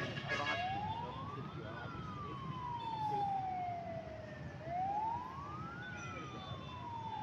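Emergency vehicle siren on a slow wail, quickly rising and then slowly falling in pitch, about one cycle every four seconds. Under it runs a low background rumble, with a brief clatter right at the start.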